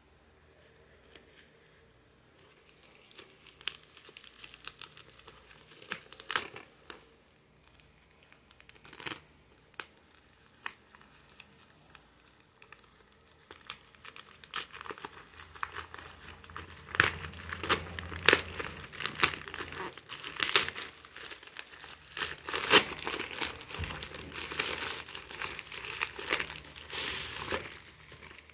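Plastic bubble mailer being handled and torn open by hand: the poly film crinkling and tearing. Sparse crackles at first become denser and louder about halfway through.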